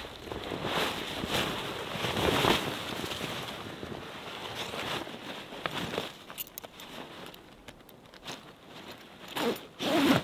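Heavy green tent fabric of a Savotta Hawu 4 hot tent rustling and swishing as it is pulled out and spread over snow, with boots shifting in the snow. Just before the end, a loud brushing rub as a jacket sleeve sweeps over the microphone.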